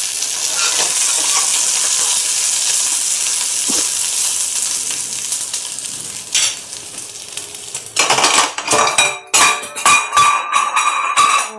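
Oil sizzling in a steel pan with mustard seeds, ginger, green chilli and curry leaves frying in it, the sizzle fading after about six seconds. About eight seconds in, a run of loud, irregular knocks.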